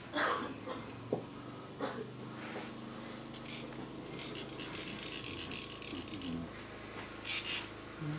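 Metal sand-mandala cone (chak-pur) rasped with a metal rod: a dry grating scrape in short spells, with a quicker run of strokes in the middle and a louder one near the end. The rasping vibrates coloured sand out of the cone's tip in a fine, controlled trickle. A faint low hum runs underneath.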